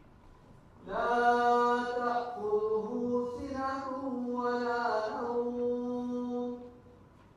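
A man's voice chanting unaccompanied in one long melodic phrase of held, gliding notes, starting about a second in and ending shortly before the end.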